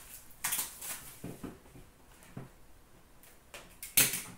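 A small cardboard box of trading cards being handled: rustling and scraping against the hands and the glass counter, with a sharp knock about four seconds in.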